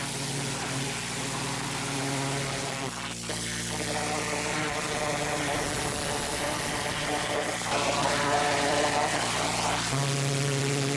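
Machine motor running steadily: a buzzing drone with a hiss over it.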